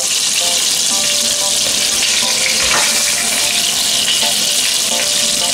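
Salmon fillets searing in hot olive oil in a frying pan, sizzling steadily, with a single knock about halfway through.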